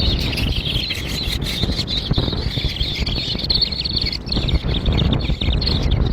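Many small birds chirping together in a dense, continuous chatter of short high notes, over a steady low rumble.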